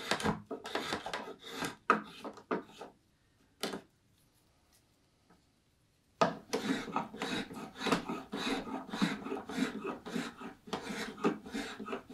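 Spokeshave cutting shavings from a black walnut bowl: quick rasping strokes, several a second. The strokes stop for about three seconds near the middle, apart from one short stroke, then go on steadily.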